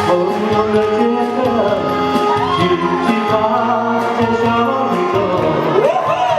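Music: a song's instrumental accompaniment playing at a wedding banquet, with a melody gliding up and down about halfway through and again near the end.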